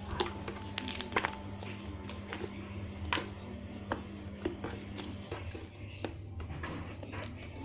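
Slime being squeezed and played with by hand, giving irregular sharp clicks and pops.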